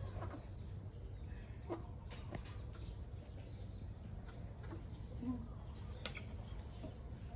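Quiet background with a steady high-pitched hum and a few scattered clicks.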